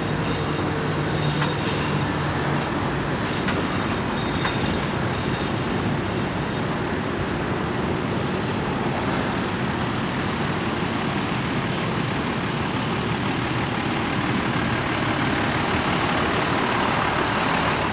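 Freight train's tank cars rolling past, the wheels giving a run of regular metallic clicks with a ringing edge, which stops about seven seconds in as the last car goes by. A steady rushing noise is left after it.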